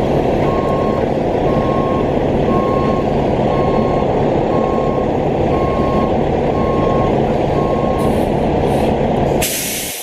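A plow truck's backup alarm beeping about once a second over its diesel engine running. The beeping stops about eight seconds in, and a short, loud burst of hiss follows near the end.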